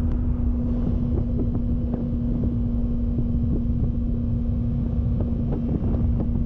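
Yamaha YZF-R3's 321cc liquid-cooled parallel-twin engine running at a steady cruise, its pitch holding level, with wind buffeting the microphone.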